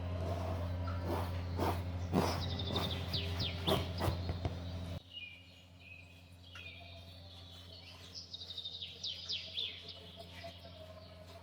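Small birds chirping in quick runs of high, falling notes. For the first five seconds a steady low hum runs underneath, then cuts off suddenly.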